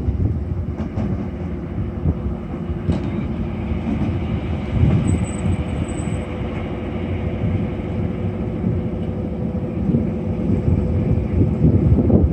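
SM42 diesel shunting locomotive running as it rolls slowly along the track: a steady engine rumble with a constant hum, growing louder near the end as it comes closer.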